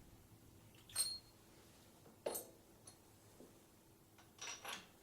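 A few faint metallic clinks and clicks. The one about a second in rings briefly, two more come close together near the end.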